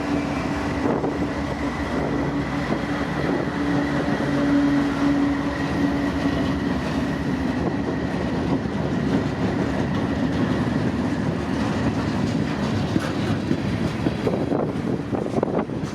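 Freight train rolling past at close range: a steady, loud rumble of cars and wheels on the rails, with a faint steady tone for the first half that fades out.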